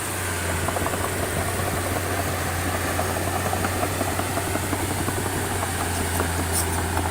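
Diesel engine of a heavy construction machine running steadily with a constant low hum.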